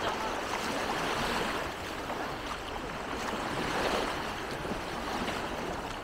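Small sea waves washing onto a sandy beach: a steady rush of surf.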